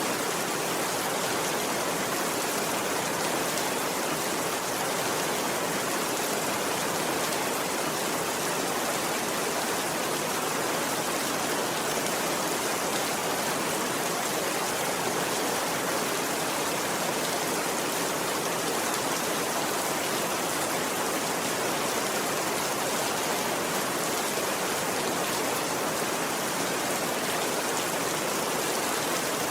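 Steady rain, an even unbroken hiss with no change in level.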